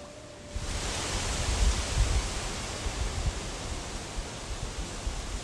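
Water splashing and churning close to the microphone, with heavy irregular low thumps. It starts suddenly about half a second in, as hands grapple under water in a shallow pool.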